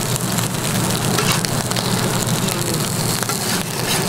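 Egg, ham and bread frying on a hot flat-top griddle, a steady crackling sizzle, with a few clicks and scrapes of a metal spatula against the griddle.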